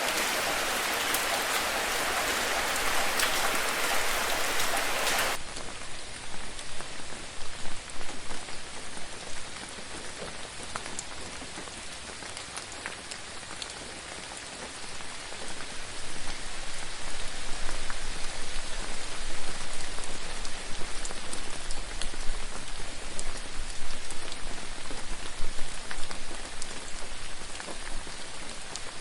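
Steady rain falling. About five seconds in it cuts abruptly to a different, lighter-sounding rain with separate drops ticking and a low rumble underneath, which grows louder in the second half.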